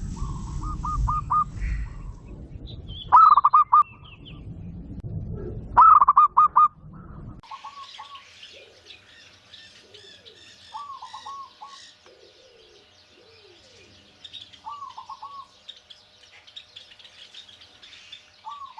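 A bird calling again and again, each call a quick run of four or five pulsed notes, repeated every few seconds. This is the sound that comes every morning from the neighbour's house. The first few calls are louder, over a low rumble; after about seven seconds the calls are softer, with some lower, curved notes between them.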